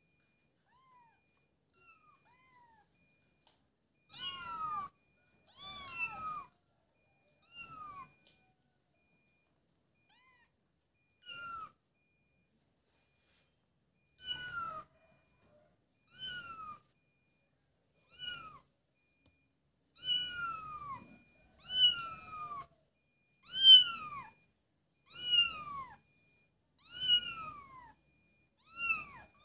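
Young kitten mewing over and over: a series of short, high mews, each sliding down in pitch, one every second or two, faint at first and louder in the second half.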